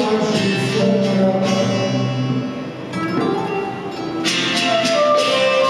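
A live folk band plays an instrumental passage on acoustic guitar with a held melody line. It eases off in the middle, and full strumming comes back about four seconds in.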